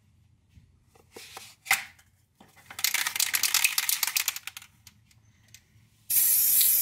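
Aerosol spray paint can handled: a couple of sharp clicks as the cap comes off, then the can is shaken, its mixing ball rattling rapidly for about a second and a half. About six seconds in, the nozzle is pressed and the spray hisses steadily.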